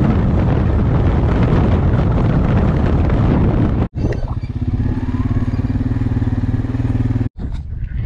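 Quad bike engine running as it is ridden, with a loud rushing noise over it for the first four seconds; after a cut about halfway through, the engine runs with a steady, even hum at low speed.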